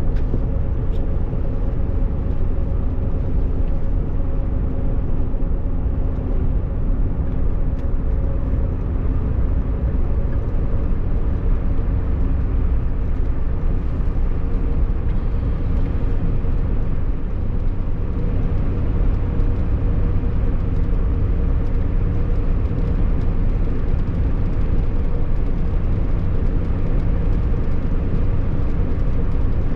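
A motor vehicle driving at a steady speed: continuous engine and road rumble with a faint steady hum, no changes in pace.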